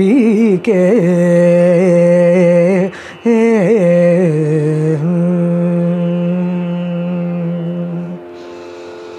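A woman singing a Carnatic kriti, her voice sliding and oscillating through ornamented phrases over a steady drone, then settling on one long held final note that stops about eight seconds in. The drone carries on alone after the voice ends.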